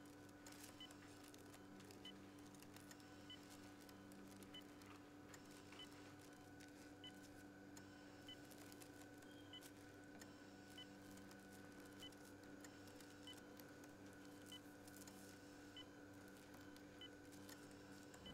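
Near silence: a hospital room's steady low hum, with a faint beep from bedside medical equipment repeating about once a second.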